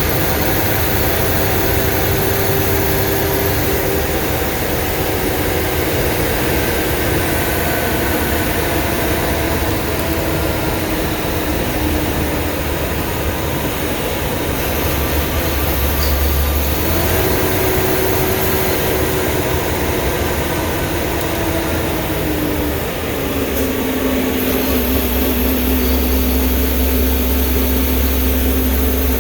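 Blue Bird school bus under way: a steady engine and road rumble with a whine that slowly falls in pitch, jumps back up partway through and falls again, then holds a lower steady tone near the end.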